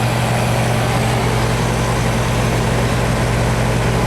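R-410A heat pump outdoor unit running just after start-up, with a steady low hum from its compressor. The unit is pumping down: its service valves are closed so the refrigerant is drawn into the outdoor unit.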